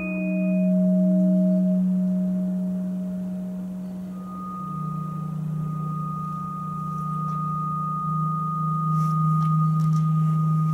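Ambient drone music of long, steady pure tones: a strong low drone that steps down slightly in pitch about four seconds in, as a thin high tone enters and holds.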